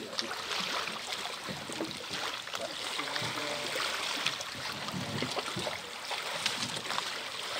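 Lake water lapping and sloshing around a small boat in shallow water, a steady watery wash with small splashes, and faint voices in the background.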